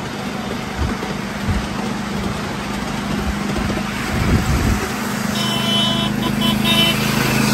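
A miniature railway train running with passengers aboard: a steady rumble of wheels on the rails with a low hum and some knocks, and a high squeal that breaks up a few times about five seconds in.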